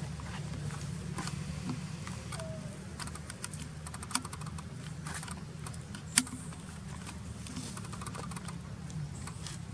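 Faint scattered clicks and ticks over a steady low hum, with two sharper clicks about two seconds apart near the middle.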